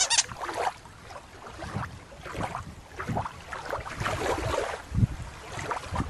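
Shallow water sloshing and splashing in irregular bursts as a small hand net is swept through it and lifted out.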